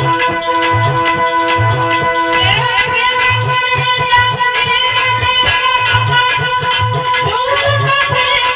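Instrumental devotional music: a sustained melody line over a steady percussion beat with shaker-like rattles.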